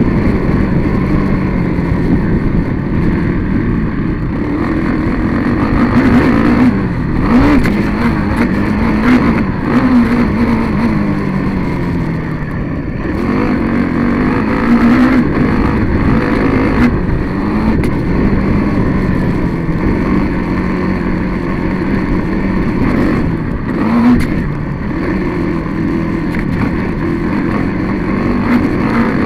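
Engine of the vehicle carrying the camera, running hard and repeatedly revving up and falling back as it goes round a dirt track, with wind and rushing noise throughout.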